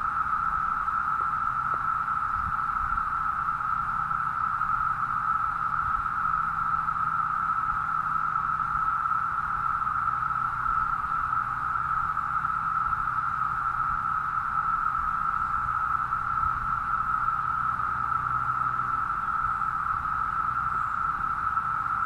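Chorus of Brood V periodical cicadas: a steady, unbroken droning hum that holds one pitch and one level throughout.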